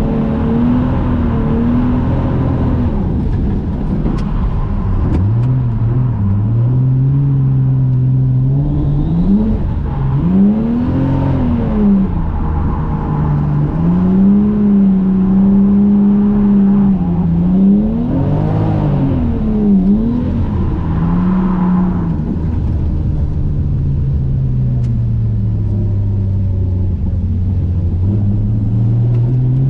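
Toyota JZX100 Mark II's straight-six engine heard from inside the cabin, revs rising and falling over and over through the drift, with a few quick sharp rev swoops. A steady hiss of tyres on the wet track sits underneath, and after about two-thirds of the way through the revs drop lower and stay down.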